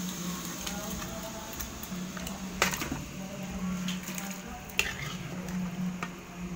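Metal spatula scraping and knocking against a metal pan as stir-fried duck pieces are pushed off into a pot of boiling water, with scattered sharp clinks, the loudest about two and a half and nearly five seconds in. A steady low hum runs underneath.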